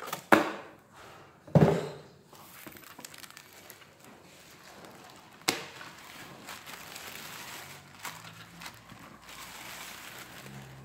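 Two loud thumps in the first two seconds as the lamp and its cardboard box are handled, a sharp click about five seconds in, then the crinkle and rustle of a clear plastic bag being pulled off the lamp.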